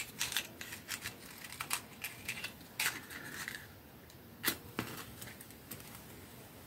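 A quick, irregular run of small sharp clicks and taps, then two louder clicks about four and a half seconds in.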